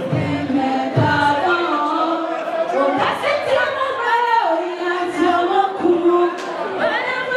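A woman singing through a handheld microphone, with other voices singing along.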